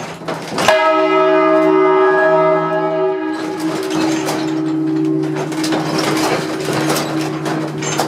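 Hand-rung church bells swinging in the belfry, heard from right beside them. A loud clapper strike less than a second in sets a bell ringing with a long hum of many steady tones. From about three seconds in, further strikes come in over the lingering hum.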